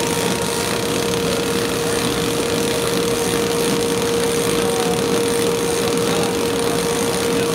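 Flexographic printing press running steadily with a web moving through at about 50 feet per minute: an even mechanical noise with one steady held tone.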